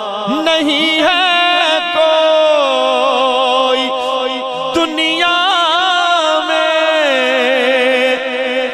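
A man's voice singing a naat in long melismatic held phrases, the pitch wavering with vibrato and sliding between notes, over a steady low drone.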